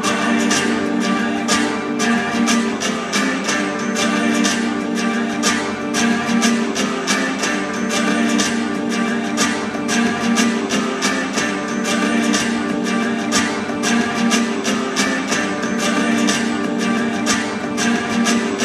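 Acoustic guitar strummed in a steady, driving rhythm, played live through the hall's speakers, with no singing.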